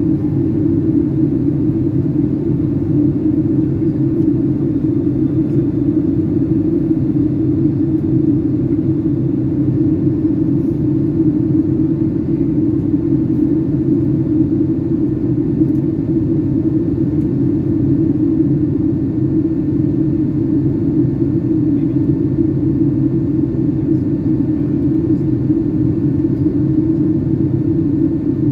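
Steady in-flight cabin noise of a Boeing 757-200 heard from a window seat: a deep, even rumble of engines and airflow that does not change.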